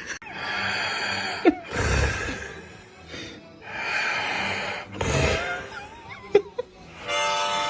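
Snoring: several noisy breaths a second or two apart, over background music.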